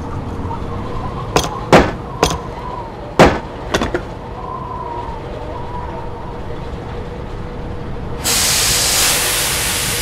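A steady low diesel engine rumble, with a run of sharp metallic clicks and snaps in the first four seconds. About eight seconds in, a loud, steady hiss starts as a hydraulic hose on the claw arm is cut with snips and sprays.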